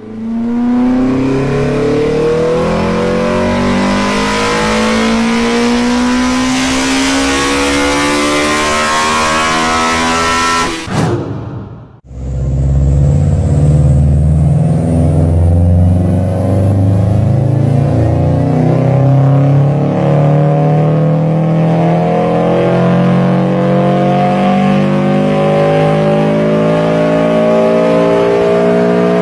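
Two car engines in turn, each accelerating under load with its pitch climbing steadily: the first for about eleven seconds, then, after a short break, a deeper-sounding one rising slowly through the rest.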